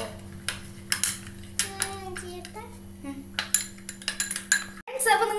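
A spoon clicking and clinking irregularly against a bowl as thick slime is stirred in it.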